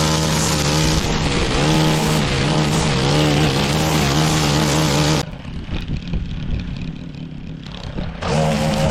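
Petrol lawn mower engine running under load, its pitch wavering as it works through grass. About five seconds in the sound drops off abruptly and comes back about three seconds later.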